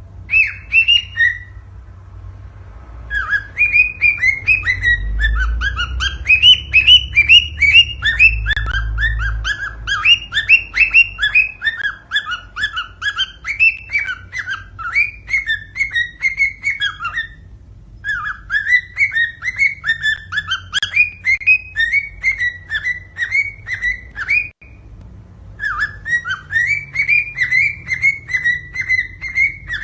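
Cockatiel singing: quick runs of short whistled notes that slide downward, two to three a second, in phrases with short breaks between them.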